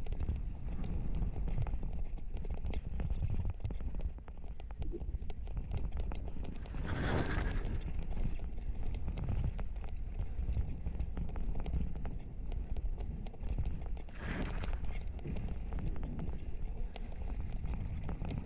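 Mountain bike riding down a dirt trail, heard from a helmet-mounted camera: a steady rumble of wind and tyres over the ground, with a constant fast rattle from the Fox Proframe RS full-face helmet. Two brief hisses stand out, about seven and fourteen seconds in.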